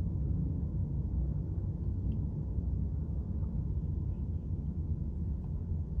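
Steady low hum of a running room air conditioner, with a faint click about two seconds in.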